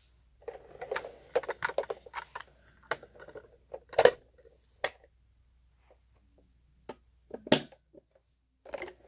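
Hess plastic toy RV and its small vehicles being handled: a run of plastic clicks and clatter, with sharper knocks about four seconds in and again about seven and a half seconds in.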